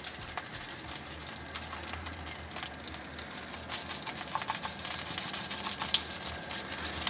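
Melted butter sizzling and crackling in a frying pan over high heat, getting a little louder in the second half.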